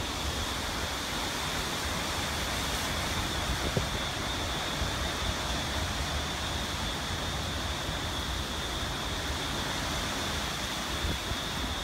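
Hurricane-force wind gusting through palms and trees with a steady hiss of rain, gusts buffeting the microphone with a low rumble. A steady high thin tone sits beneath it, and there is a single short knock about four seconds in.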